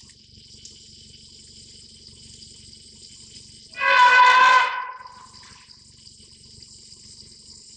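An elephant trumpeting once, a loud brassy call about a second long, about four seconds in, over a steady high-pitched insect drone.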